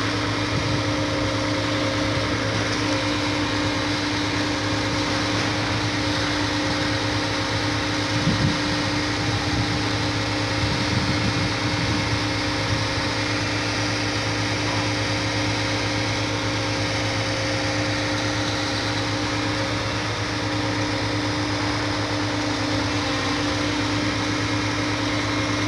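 Shifeng concrete boom pump running steadily in its line-running mode, its engine and hydraulics humming at a constant pitch, with a brief swell about eight seconds in.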